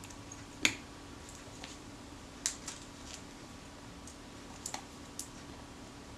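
Sharp clicks and taps as a metal Kodak Retina IIIS camera body is handled and turned over. There is one loud click about half a second in, then a few lighter ones.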